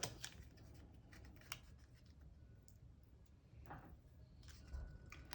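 Near silence with a few faint clicks and a soft rustle of paper card being handled.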